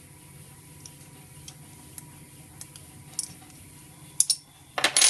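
Light ticks and clicks of a brass inline fuel adapter and pressure gauge being handled and turned by hand. About four seconds in come a couple of sharp metal clinks, then near the end a louder, brief metallic clatter of metal parts against the workbench.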